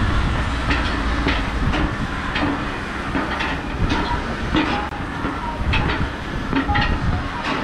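Boots climbing a steel gangway stairway: an uneven series of clanking footfalls on the metal treads, roughly one every half second to second, some ringing briefly. Underneath is a steady low rumble.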